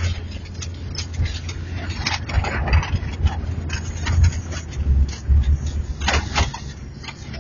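Jeep engine running with a low rumble heard from inside the cabin as it drives over a rough, wet dirt track, with knocks and rattles from the bumps, the sharpest about two seconds and six seconds in.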